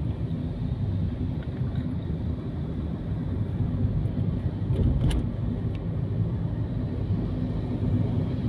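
Car driving, a steady low rumble of engine and road noise, with one brief click about five seconds in.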